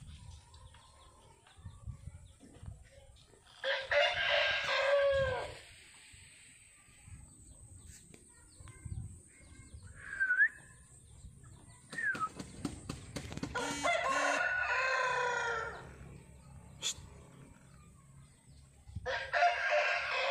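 Rooster crowing three times, each crow a second and a half to two and a half seconds long and falling in pitch at the end: about four seconds in, again past the middle, and once more near the end.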